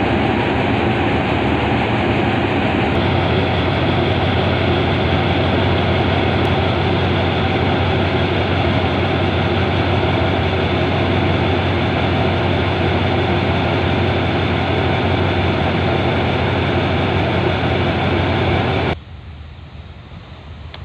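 Diesel-electric locomotive engine running steadily up close, with a strong low hum. Near the end it cuts off abruptly and gives way to softer wind noise on the microphone.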